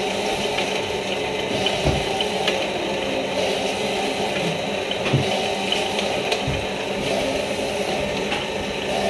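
Cotton wick making machine running steadily, its DC motor and belt drive giving a continuous hum and hiss, with a few low thumps.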